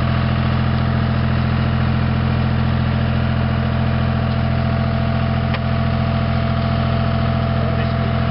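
Tractor engine running steadily at low speed while pulling a two-row transplanter. One light click about five and a half seconds in.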